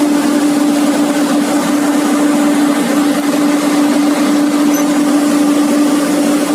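Komatsu PC200-8 excavator's six-cylinder diesel engine running steadily, with a strong, constant droning tone over its noise.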